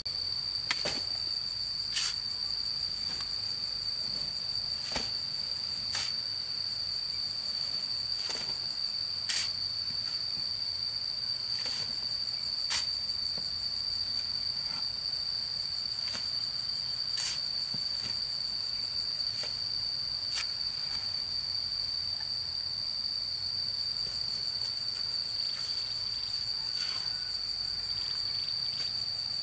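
Insects trilling in one steady, unbroken high tone. Sharp clicks and knocks come every second or few, from a shovel and trowel working cement mortar.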